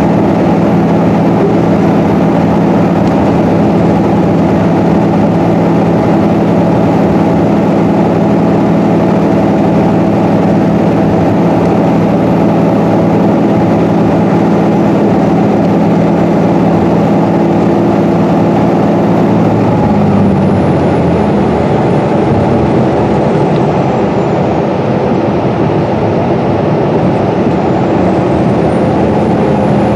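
Inside a 2012 Gillig hybrid bus cruising at highway speed: the Cummins ISB6.7 diesel and Allison hybrid drive run with steady road and tyre noise. The engine's steady hum changes about two-thirds of the way through, and a faint high whine falls away, then rises again near the end.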